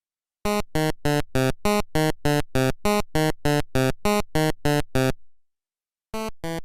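Rapid run of short, identical synthesizer notes, about four a second, stopping about five seconds in and starting again near the end.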